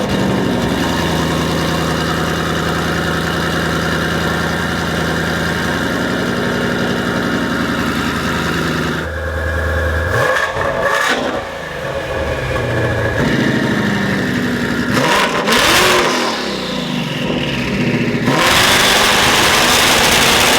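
Twin-turbo Shelby GT500 V8 running through a Corsa Xtreme active catback exhaust with a double H pipe. It holds a steady note for about nine seconds, then revs up and down several times, and is loudest in a final rev near the end that cuts off suddenly.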